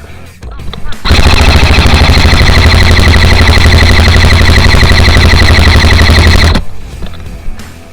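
Airsoft gun firing one long full-auto burst of rapid, evenly spaced shots. It starts about a second in and cuts off about five and a half seconds later, very loud and close to the microphone.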